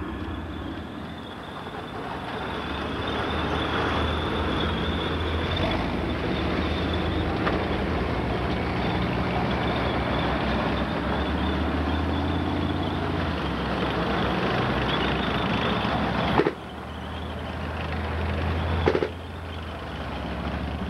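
Leopard C1 tanks driving past: the MTU V10 multi-fuel diesel engine and running gear make a steady low rumble with a high whine over it. The sound cuts off abruptly and resumes twice near the end.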